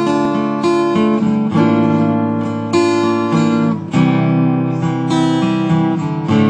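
Acoustic guitar strummed, the chord changing about once a second.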